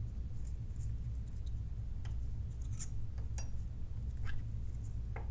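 A few light clicks and clinks of small cell parts being handled on a lab bench, over a steady low hum.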